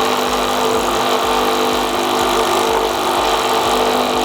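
Coffee-and-tea brewing machine's pump running with a steady hum as it brews a cup of tea straight after the button is pressed.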